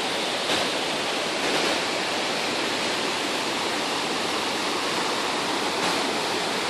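Waterfall: a steady rush of falling water that does not let up.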